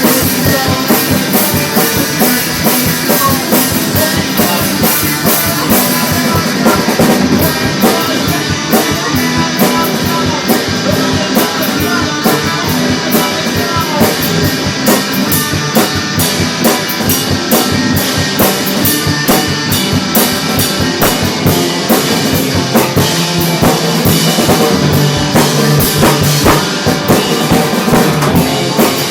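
Rock music with a full drum kit and electric guitar playing steadily and loudly.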